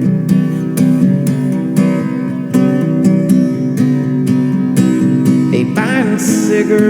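Instrumental break in a song: acoustic guitar strummed in a steady rhythm, with a wavering melody line coming in near the end.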